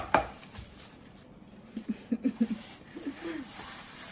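A sharp knock right at the start, then a quick run of about five short low hums, with two more a second later: a woman humming with her mouth closed.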